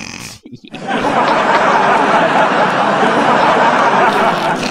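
Loud, sustained laughter starting about a second in, dense and unbroken.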